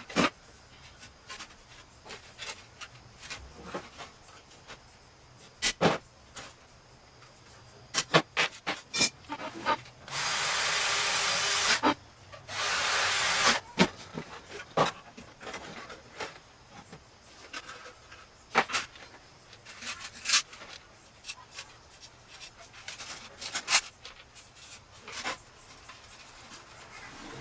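Hands-on workshop work on sheet-metal parts: scattered clicks and knocks from parts being handled and set down, with two steady hissing bursts of about two seconds each midway through.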